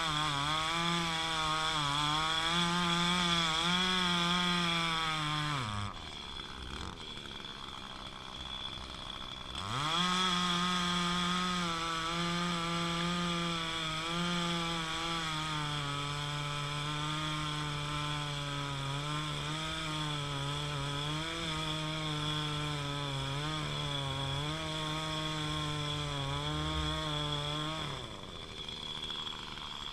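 Chainsaw bucking a log at full throttle, its engine note wavering as the chain bogs in the cut. About six seconds in the revs fall off for a few seconds, then it opens up again and cuts steadily until the revs drop once more near the end.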